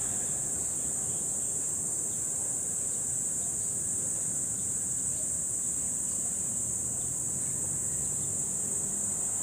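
Steady, high-pitched insect chorus that holds unbroken at one pitch, over a faint low rumble.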